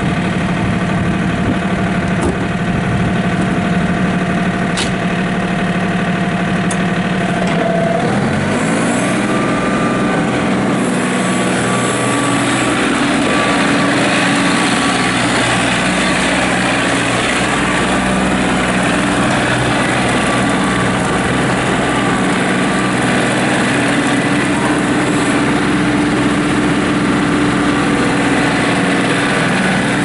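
2001 John Deere 4200 compact tractor's three-cylinder diesel running steadily at idle, then revved up about eight seconds in and held at a higher, steady speed as the tractor is driven.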